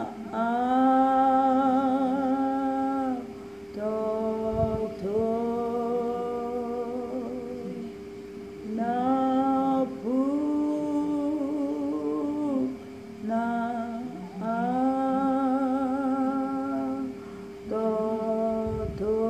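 A woman singing a slow song unaccompanied, in long held notes with vibrato, phrase after phrase with short pauses for breath. A steady low tone runs underneath throughout.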